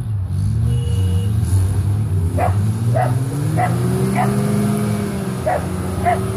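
Off-road vehicle engines running with a steady low drone; about three and a half seconds in, one revs up, rising in pitch under the load of a tow strap pulling a stuck off-roader out of mud. A dog barks repeatedly, about every half second, from about two seconds in.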